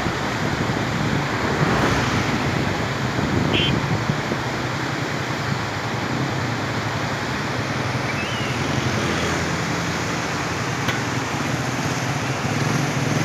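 Steady rushing of a whitewater river's rapids, mixed with wind on the microphone.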